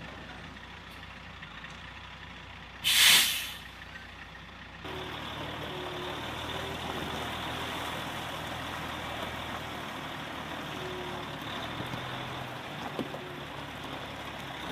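A heavy flatbed delivery truck's air brakes release a loud hiss of air about three seconds in. From about five seconds in, its diesel engine runs steadily.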